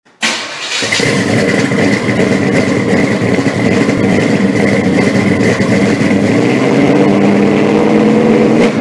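A car engine comes in abruptly just after the start and runs loud and steady, with a thin high whine over it.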